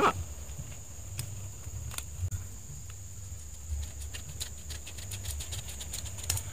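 A knife cutting up a roasted squirrel on a banana leaf: a sharp click at the start, then scattered small clicks and crunches that come thicker near the end. A steady high-pitched drone and a low rumble run underneath.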